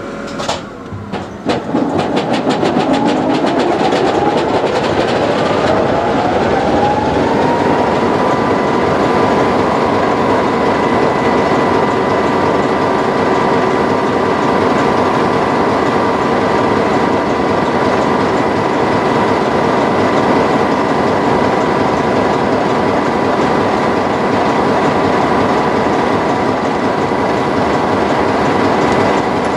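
Class 33 'Crompton' diesel locomotive standing with its Sulzer eight-cylinder engine running. A rapid run of clicks comes about a second in, then a whine rises in pitch over about six seconds and holds steady.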